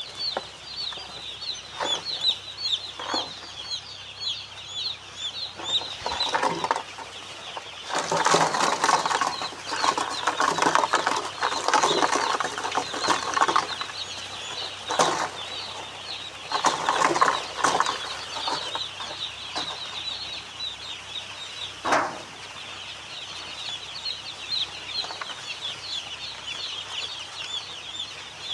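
A large flock of day-old chicks peeping continuously, many high overlapping peeps at once. Through the middle stretch louder bursts of rustling noise and a few sharp knocks rise over the peeping.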